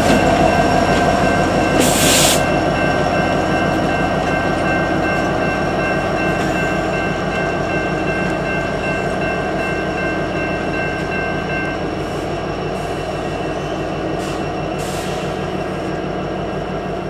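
EMD 16-710 diesel prime mover of a locomotive running steadily, easing slightly in level, with a short hiss about two seconds in and another near the end.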